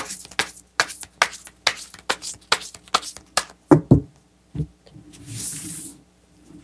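A tarot deck being shuffled by hand: a quick run of card snaps and taps, a few heavier knocks near the four-second mark, then a soft swish as the cards are spread out in a fan on a velvet cloth.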